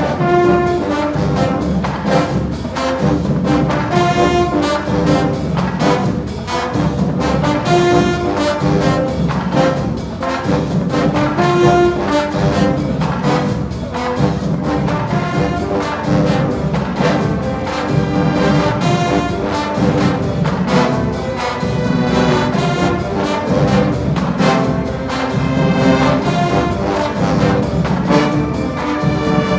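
HBCU marching band brass section (trombones, trumpets) playing a loud show tune over drums that keep a steady beat.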